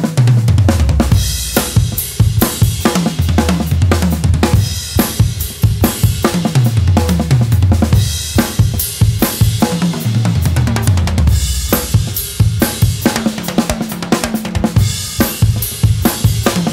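Acoustic drum kit played hard: fast fills run around the toms, stepping down in pitch from the high toms to the floor toms, with bass drum, snare and crash cymbals. The phrases repeat about every four seconds.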